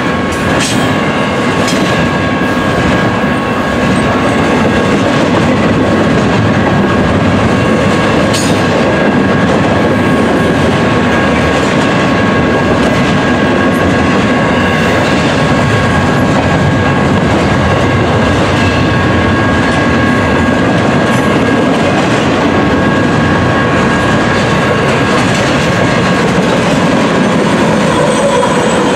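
Freight train of double-stacked container cars passing close at speed: a loud, steady rumble of wheels on rail with occasional sharp clicks over rail joints and a steady high-pitched whine over it. Near the end a diesel locomotive passes, and its engine note drops in pitch as it goes by.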